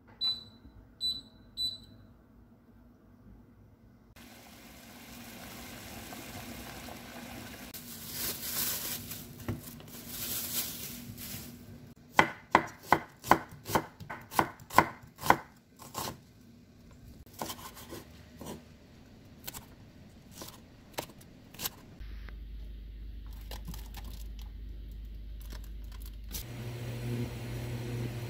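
Three short high beeps from an induction cooktop's touch controls, then a chef's knife slicing onion on a wooden cutting board: about nine quick, sharp chops in a row, followed by a few scattered cuts.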